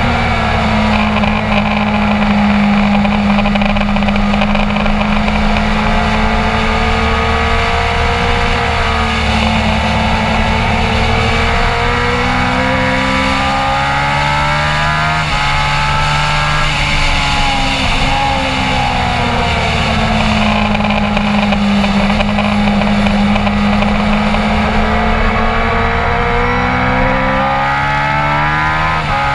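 Motorcycle engine running hard through a race-track lap, its pitch climbing and falling with throttle and gear changes, with sharp pitch jumps at the shifts, one about midway and one near the end.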